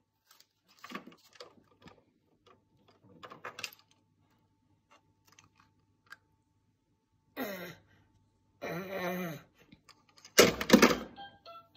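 Plastic toy keys clicking and rattling as they are handled, with a few short pitched calls later on and a loud burst about ten and a half seconds in.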